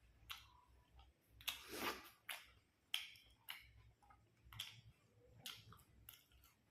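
Quiet eating sounds: one longer crunchy bite about a second and a half in, then a string of small sharp clicks and mouth noises of chewing.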